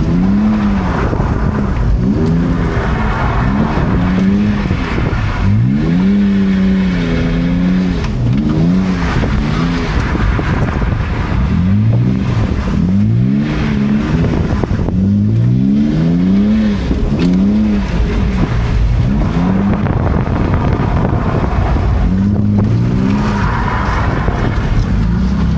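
BMW E46's engine revving hard and dropping back over and over as the car is drifted on a wet road, with the pitch climbing and falling every second or two. A hiss swells up a few times over the engine.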